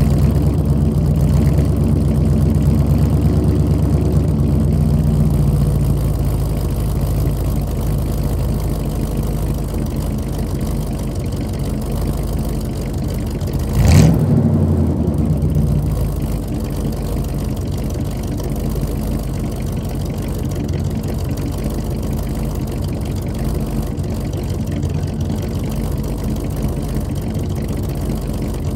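1986 Chevrolet C-10 pickup's engine idling steadily while it warms up after a cold start. Its idle is a little louder for the first few seconds. About halfway through it is blipped once in a short rev that rises and drops straight back to idle.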